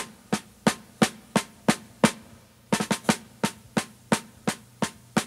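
Snare drum playing a steady marching cadence of sharp strokes, about three a second, with a short pause about two seconds in followed by a quick triple stroke.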